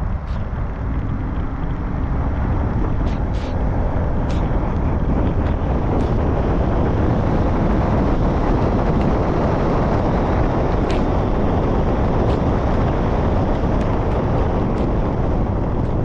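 Steady rush of road and wind noise from a car driving, a little louder through the middle as it gathers speed, with a few faint light clicks.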